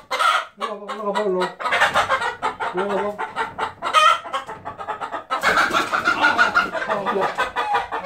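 A hen squawking and clucking loudly, with bursts of wing flapping.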